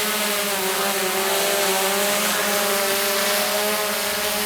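Small drone hovering close by: a steady propeller buzz whose pitch wavers slightly as it holds position.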